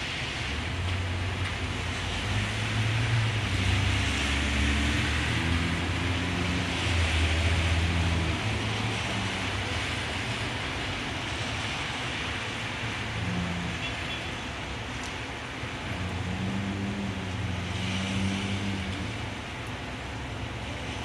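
Heavy rain falling steadily on a city street, with car traffic running on the wet road; engine rumble swells as vehicles pass a few seconds in and again near the end.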